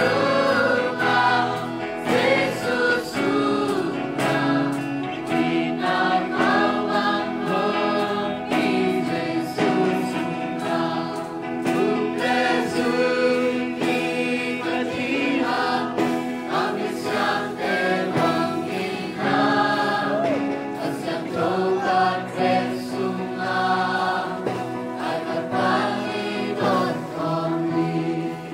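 Music: a choir singing a gospel worship song, with voices holding long notes over a steady low accompaniment.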